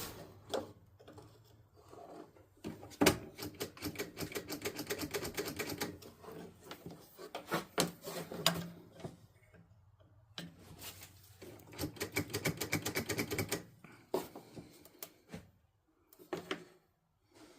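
Ratchet wrench clicking in two long runs of rapid, evenly spaced clicks, with a few separate knocks of tools or parts between them, as a bolt is turned on a riding mower.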